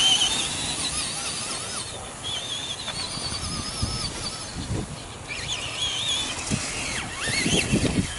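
Traxxas Bigfoot RC monster truck's electric motor whining in stretches as it drives across grass, the pitch wavering up and down with throttle, with a few low thumps near the end.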